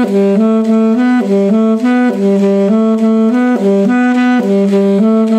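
Solo alto saxophone playing a short riff that steps between three notes (written E, F sharp and A flat), in quick, evenly spaced notes repeated as a phrase.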